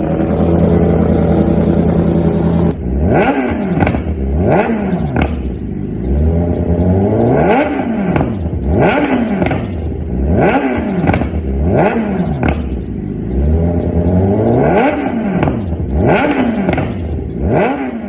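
BMW S 1000 R inline-four engine through an Austin Racing GP1R full race exhaust, idling for about three seconds and then revved repeatedly in quick blips, each rev rising and falling sharply.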